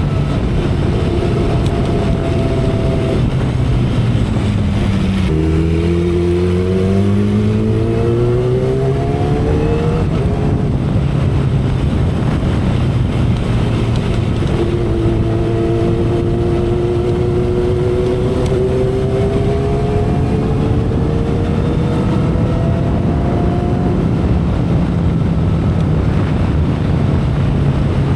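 2012 Kawasaki Ninja ZX-10R's inline-four engine under way at expressway speed, heard through heavy wind and road noise. The engine note dips about five seconds in, then rises steadily as the bike accelerates, and rises again more gradually in the second half.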